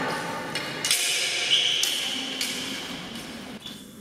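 A few sharp knocks in a large echoing hall, the loudest about one and a half seconds in followed by a short high metallic ring.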